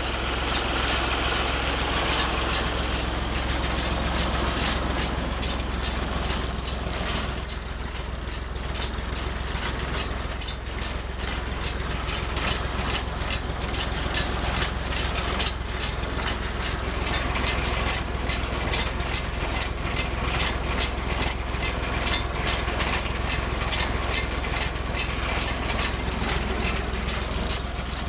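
Gallignani 9150 round baler running under power from the tractor: a steady low engine drone under a dense metallic rattle and clicking from the baler's turning parts. The clicks grow sharper and more regular about halfway through.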